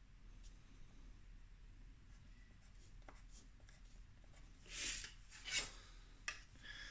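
Pencil drawing short dashed strokes along a plastic set square on paper, a series of faint scratches. A few seconds in come two or three louder rustles as the set square and hands are lifted off the drawing.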